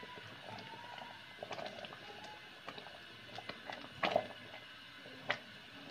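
A metal spatula scraping and tapping against a stainless steel pot while stirring thick, reduced tomato ketchup: soft irregular scrapes and clicks, with two sharper taps about four and five seconds in.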